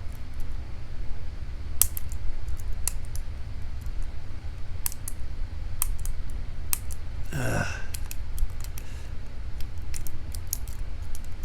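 Scattered light metallic clicks of a lock pick and tension wrench working the pin stack of a challenge padlock, as the picker tries to ease out of a trap pin, over a steady low hum. A brief low vocal sound with falling pitch comes past the middle.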